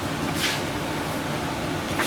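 Steady low hum in the workshop, with one short scraping swish about half a second in as the sheet-metal panel is handled at the brake.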